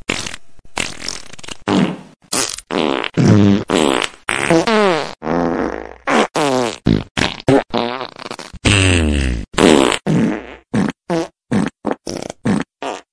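A rapid string of farts, two or three a second. Most are short and sputtering; a few longer ones have a pitch that slides up or down.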